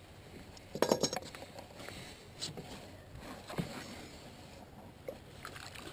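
Handling noises as a small fish is unhooked with pliers: a burst of knocks and rattles about a second in, then a few lighter clicks and taps.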